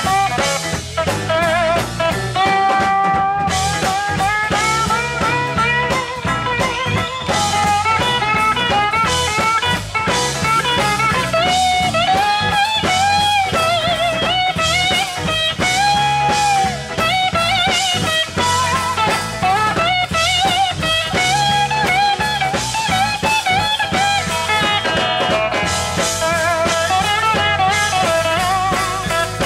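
Live sacred steel band playing an instrumental: steel guitar carrying the lead with sliding, wavering notes over electric guitar, electric bass and drum kit.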